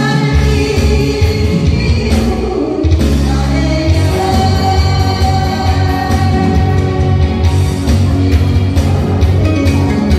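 A woman singing a Korean trot song live into a handheld microphone over a loud backing track with a steady beat, heard through a PA system.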